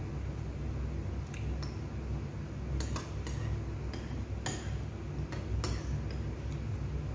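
Cutlery clinking against a plate while eating, with a cluster of sharp clinks between about three and six seconds in, over a steady low hum.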